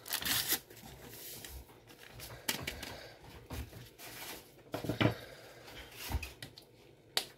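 Paper sachet of vanilla sugar crinkling as it is shaken out over a bowl of flour, then scattered light knocks and rustles of handling, a few strokes spaced about a second apart.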